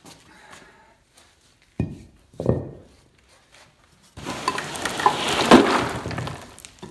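Two dull knocks, then about four seconds in a plywood box of loose gravel and stone chips tips forward and the gravel spills out onto a concrete floor in a clattering rush of about two and a half seconds. The loose fill holds no structure once its front brace is pulled away.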